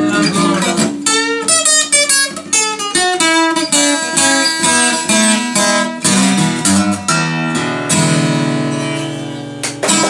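Acoustic guitar playing the instrumental ending of a song: a run of picked notes, then a final chord left to ring and slowly fade near the end.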